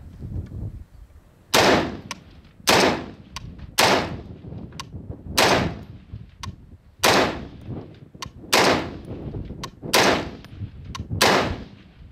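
FN FAL-pattern rifle in 7.62×51 NATO with a Halbek muzzle device, fired semi-automatically: eight loud shots, about one every second and a half, with fainter sharp clicks between them.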